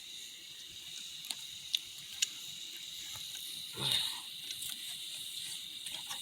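A night insect chorus of crickets trilling steadily. Three sharp small clicks come between one and two and a half seconds in, and a brief rustle comes about four seconds in.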